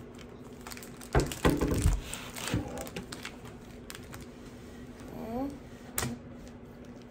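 Pokémon foil booster packs being shuffled in the hands and knocked down on a cloth-covered table: crinkling wrappers and a few sharp taps, loudest a little over a second in, with another click near the end.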